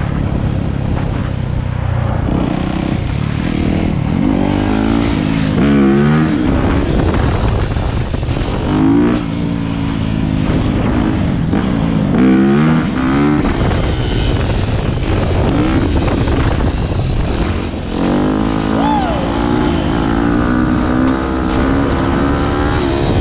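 Dirt bike engine heard from the rider's own bike, its revs climbing and dropping back several times as it rides along the road.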